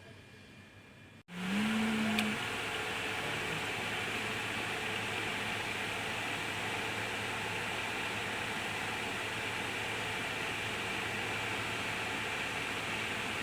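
A machine running with a steady rushing noise over a constant low hum. It cuts in suddenly about a second in, opening with a brief low tone that rises slightly and holds for about a second.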